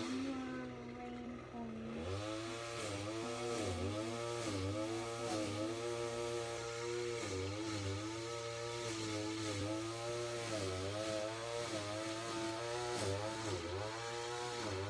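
A motor running steadily, its pitch dipping briefly every second or so, starting about two seconds in after a quieter single hum.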